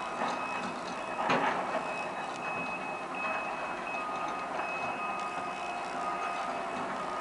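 Heavy excavator working: the engine runs under a steady high squeal or whine with short breaks, and a metallic clank about a second and a half in.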